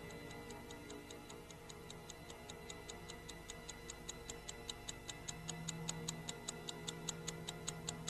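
Rapid, even ticking of a clock, about five ticks a second, growing louder toward the end, over a low steady electronic hum.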